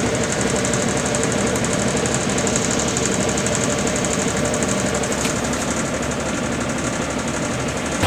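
Electrolux Mini Silent 3 kg washing machine in its high-speed spin cycle, running steadily with a fast, even rattle and hum. The spin shakes the sink beside it, which is not yet fastened down, so it vibrates along with the machine.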